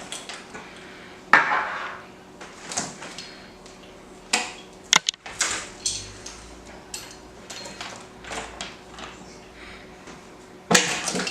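Irregular small clicks, taps and brief rustles of hands working a string of LED lights and push pins, with one sharp click about five seconds in and a louder scrape near the end.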